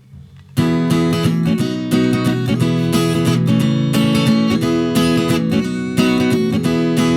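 Strummed acoustic guitar chords, entering suddenly and loud about half a second in, with a steady strumming rhythm: an instrumental song intro.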